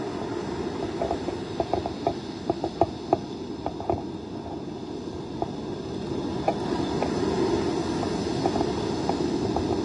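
Tropical-storm wind buffeting the microphone, with a steady rushing noise over the beach. A run of small clicks comes in the first few seconds.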